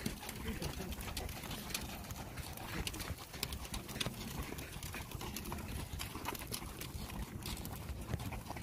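Horses' hooves clip-clopping in an irregular run of short clicks, over a steady low rumble.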